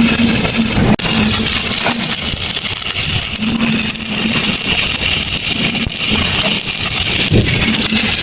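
Electric arc welding on thin pipe: a steady crackling hiss from the arc, with a low hum that comes and goes. There is a momentary break about a second in.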